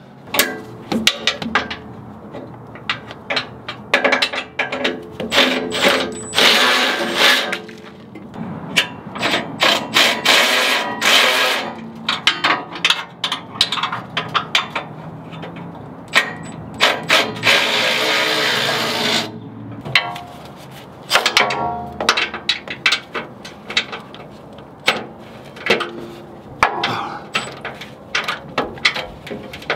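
Milwaukee cordless electric ratchet working a 19 mm nyloc nut: its motor runs in short bursts, two of them longer, among many sharp clicks and clunks of the ratchet head and socket. The nut is at about the limit of the ratchet's torque.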